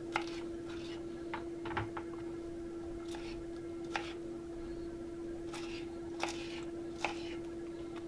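Kitchen knife dicing red bell pepper on a wooden cutting board: irregular sharp knocks of the blade against the board, over a steady low hum.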